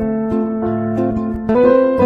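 Instrumental background music: sustained plucked-string notes and chords, changing chord twice.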